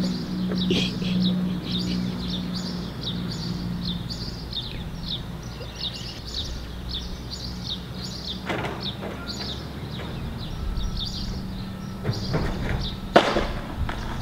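Birds chirping rapidly and continuously in short high notes, over a low steady hum, with a sharp knock near the end.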